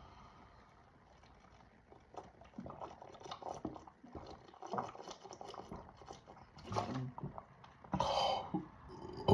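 A person gulping carbonated diet soda from a 2-liter plastic bottle: soft wet swallows and small clicks coming in quick runs after a quiet start, with a short hiss about eight seconds in. A loud burp starts right at the very end.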